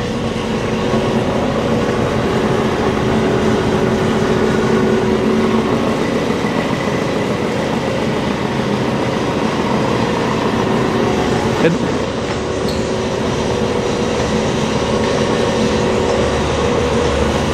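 Monarch 25"N heavy-duty engine lathe running under power, its spindle drive giving a steady mechanical hum with several held whining tones. A single short knock comes about two-thirds of the way through.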